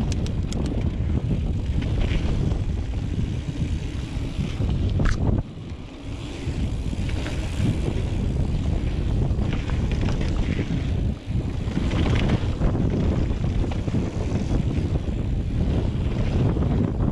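Wind rushing over the camera microphone, mixed with the rumble and rattle of a mountain bike riding fast down a dirt trail. The noise drops briefly about five and a half seconds in.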